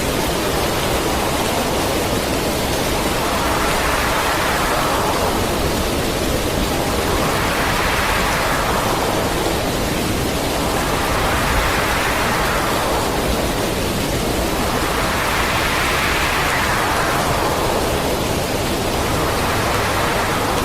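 Steady rushing noise of storm wind and heavy rain, with a slow swell about every four seconds.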